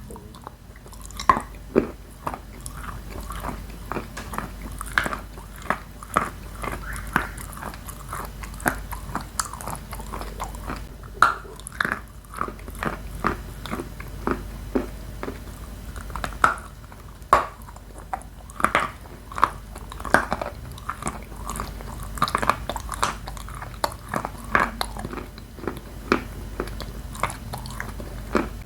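Someone biting and chewing dry, crunchy edible chalk with purple Astana clay, close up. Sharp, irregular crunches and clicks go on throughout, with a louder bite every second or two.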